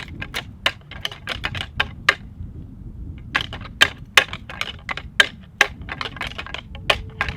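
Rattling antlers clacked and ground together in quick, irregular strikes, with a pause of about a second partway through, to imitate two whitetail bucks sparring and draw bucks in during the rut.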